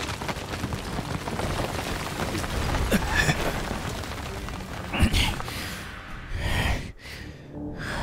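Rushing, rumbling blast-aftermath sound effect as dust and smoke settle, with thuds about three and five seconds in, over background music; near the end come short pained gasps from a wounded man.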